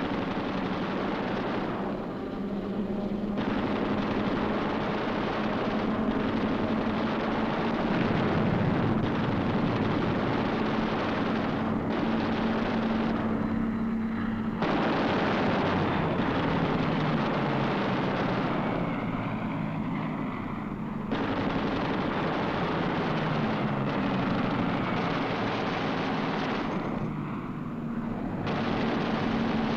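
Dense machine-gun fire over a steady aircraft engine drone, a dubbed war-film effects track, broken by abrupt cuts every few seconds.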